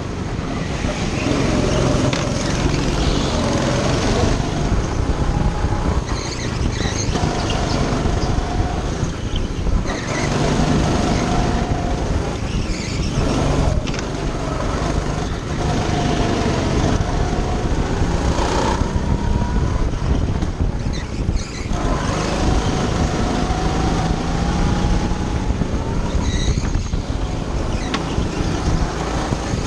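Go-kart engine heard from on board, its pitch rising over a second or two as the kart accelerates and dropping back again and again as the driver lifts for the corners.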